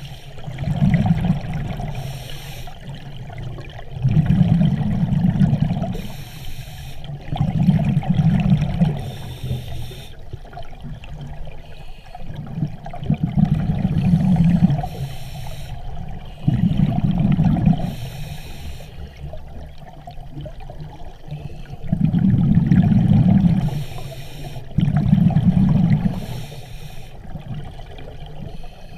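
Scuba diver breathing through a regulator underwater: a short hiss on each inhale, then a loud, low rumble of exhaled bubbles, repeating every three to five seconds.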